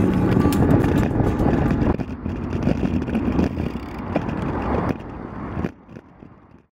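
Wind rushing over a bike-mounted camera's microphone, with road rumble, while riding. It drops off sharply about a second before the end and then cuts to silence.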